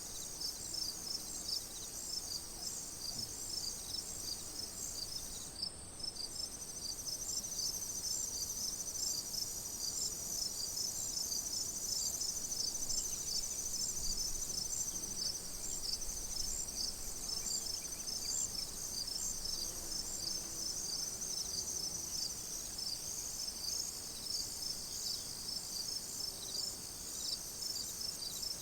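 A chorus of crickets chirping, many quick evenly repeating chirps, with a continuous high trill joining about six seconds in.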